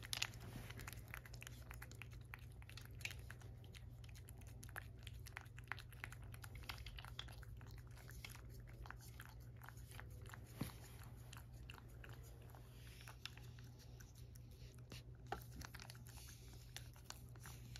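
A cat licking a lickable paste treat from a saucer: a fast, irregular run of small faint clicks of tongue and mouth.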